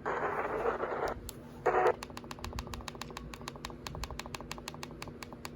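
A short beep, then rapid, even clicking at about eight clicks a second.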